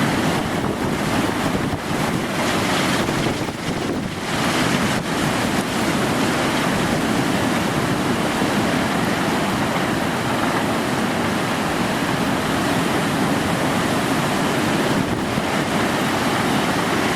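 Hurricane winds buffeting the microphone over heavy surf, a loud, steady rush of noise that dips briefly a couple of times in the first few seconds.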